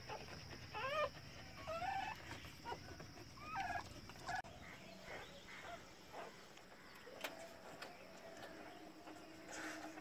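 Newborn puppies squeaking and whimpering: a few short, high, wavering cries in the first half, then fainter ones.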